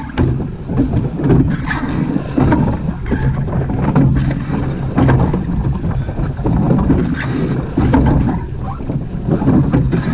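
A surf boat being rowed through fast-flowing river water: the water rushes past the hull and the oars work in a steady rhythm, swelling about every one and a half seconds with each stroke. Wind buffets the microphone.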